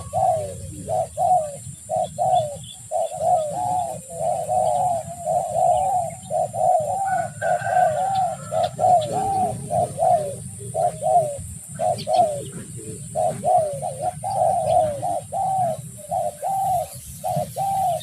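Spotted dove (tekukur) cooing over and over, a long run of short, rounded coo notes at about two to three a second, with brief pauses. A steady low rumble runs underneath.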